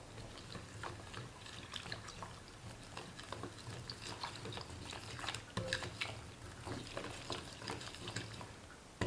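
Chopsticks stirring flour into water in a large porcelain bowl while more flour is poured in from a small bowl: faint, with scattered light clicks of the chopsticks and soft wet stirring over a faint low hum.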